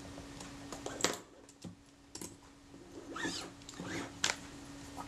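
Handling noise of a Kodak Retina IIIc camera body being picked up and turned over: a few sharp clicks and knocks, with a brief wavering squeak about three seconds in.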